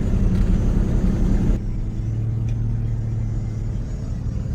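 Farm buggy's engine running steadily with a low rumble, its note dropping to a lower, steadier hum about a second and a half in, as if easing back to idle.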